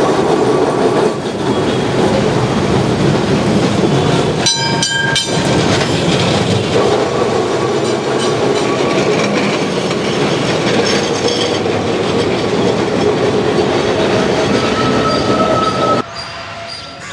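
Electric street tramcar of the Kolkata system running past close by on street track: a steady rumble of wheels and running gear, with clicking over the rails and a brief squeal of wheels near the end. A few sharp metallic clanks come about four and a half seconds in. The sound cuts off abruptly about sixteen seconds in.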